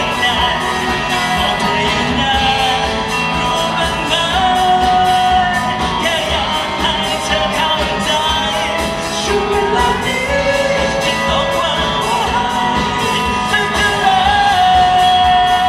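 A pop-rock band playing live, with a lead singer holding long notes over guitars and a steady drum beat.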